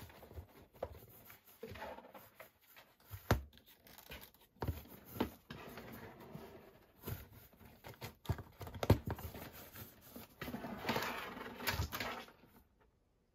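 A cat pawing and scratching at a cardboard file box: irregular taps, knocks and scrapes of claws and paws on the cardboard, with a longer stretch of rustling scraping about ten seconds in.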